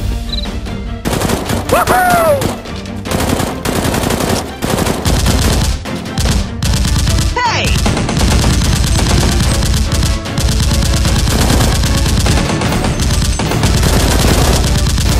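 Rapid automatic gunfire sound effects laid over background music, growing dense and continuous from about four seconds in. Two brief whistling glides in pitch cut through, about two seconds in and again about seven seconds in.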